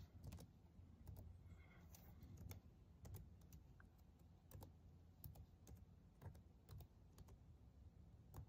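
Lenovo IdeaPad laptop keyboard: faint, irregular keystrokes as a password is typed in.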